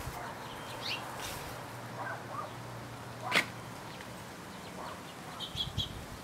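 Quiet outdoor backyard ambience with a few short bird chirps, and one brief swish about three seconds in, the loudest sound here.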